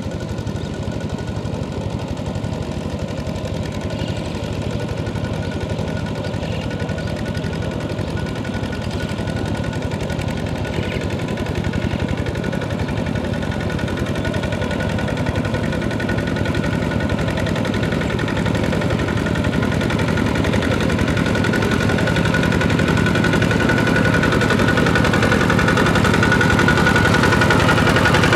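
Kubota two-wheel walking tractor's single-cylinder diesel engine running steadily under load while plowing through mud, growing louder as the machine comes closer.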